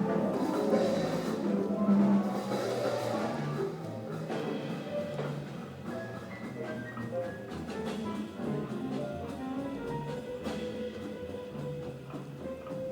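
Jazz piano trio playing: acoustic piano with double bass and drum kit, loudest in the first three seconds, then softer.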